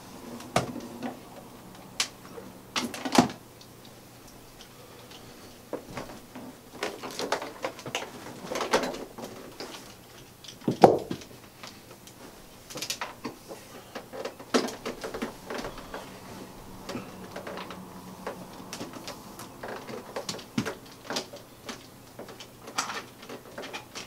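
Handling noises of an upright vacuum cleaner being unplugged and its power cord wound onto the handle: scattered clicks, knocks and rustles, the loudest a sharp knock about eleven seconds in.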